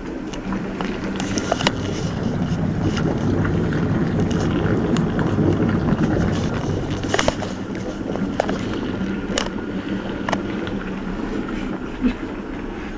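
Whirlpool bathtub running: a steady hum under the churn of bubbling, foaming water, with a few sharp clicks.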